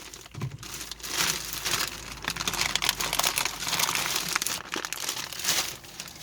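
Thin plastic packaging crinkling and rustling as it is handled and opened, a steady run of irregular crackles with some tearing.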